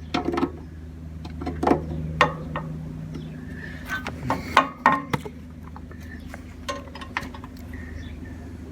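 Scattered metal clinks and knocks of spotlights and their mounting hardware being handled and tried against the bullbar, over a steady low hum.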